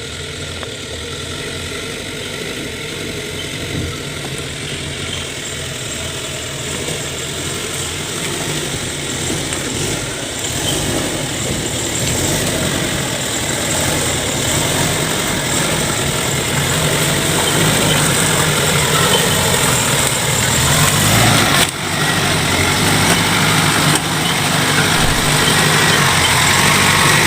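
Vehicle engine running steadily, growing gradually louder, with a brief drop in level about three-quarters of the way through.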